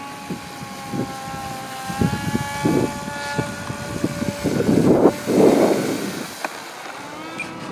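Giant-scale radio-controlled Cessna 170 model taxiing on grass, its motor and propeller running at low power with a steady tone that steps up in pitch about two seconds in. Gusts of wind buffet the microphone several times in the middle.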